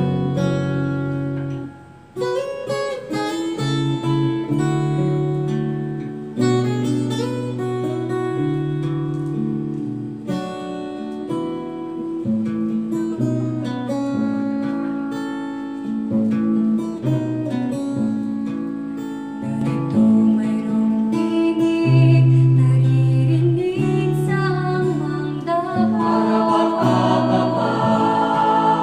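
Acoustic guitar playing a slow introduction of chords and single notes, dipping briefly about two seconds in. Near the end, voices start singing over the guitar.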